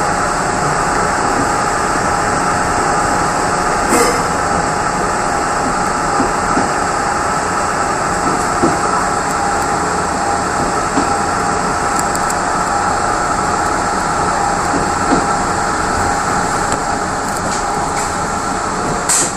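Steady running noise of a Mugunghwa-ho passenger coach heard from inside its rear car, with a few scattered clicks of the wheels over rail joints; a sharper clatter comes near the end.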